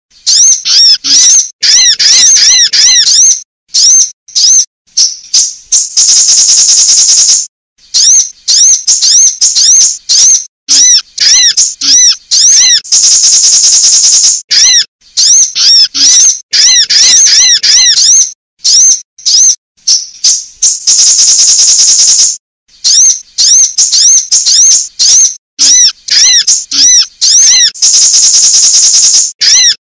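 Sunbird calls, said to be a female's, on a bird-lure recording: fast runs of high, arching chirps, broken about every seven seconds by a buzzy trill lasting about a second and a half, in a repeating loop.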